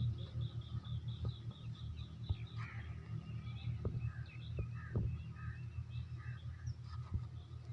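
Small birds chirping: a quick run of repeated high notes, then varied short calls, over a steady low hum.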